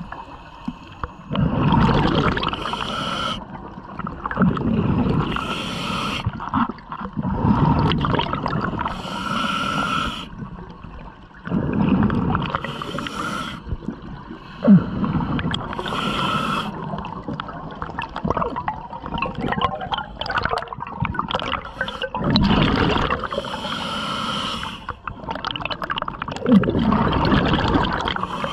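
Scuba diver breathing through a regulator underwater: a hiss on each inhale alternating with a low gurgling rush of exhaust bubbles on each exhale, repeating every few seconds.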